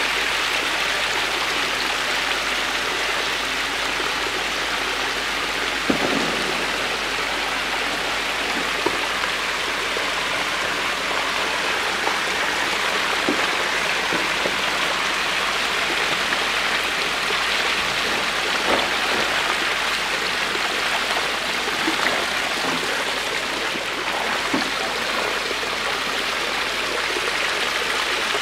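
A dense mass of hybrid magur catfish splashing and churning in shallow hatchery-tank water as feed is scattered over them: a steady, even splashing with a few small sharper splashes or knocks now and then.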